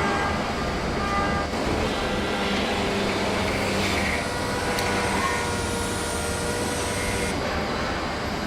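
Steady factory machinery noise from a motorcycle assembly plant: a dense mechanical rumble with several held hums, which changes in character about seven seconds in.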